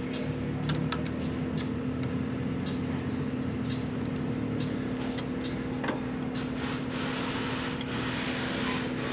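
Hand tool working at the hub of an RV rooftop air conditioner's condenser fan blade to loosen it on the motor shaft: scattered light metal clicks, then rubbing and scraping in the last few seconds. A steady low hum runs underneath.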